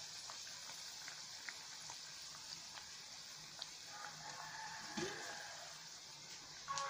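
Hot oil sizzling steadily around vegetable rolls shallow-frying in a pan, with scattered small pops.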